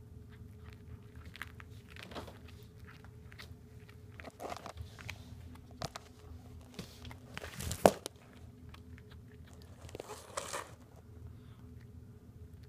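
A domestic cat chewing a southern flying squirrel it has caught: irregular bites and crunches, the loudest about eight seconds in.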